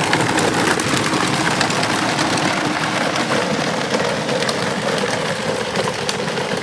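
Battery-powered Kawasaki ride-on toy ATV driving over gravel: its plastic wheels crunching and crackling on the stones, with a steady hum from its electric drive motor.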